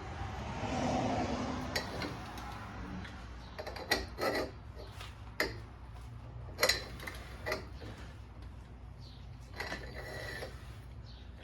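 A torch flame hissing for the first few seconds while the ball joint nut is heated, then scattered sharp metal clinks and knocks of tools being handled.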